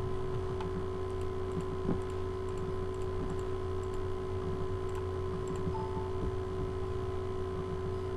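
A few faint computer mouse clicks, scattered and irregular, over a steady low hum.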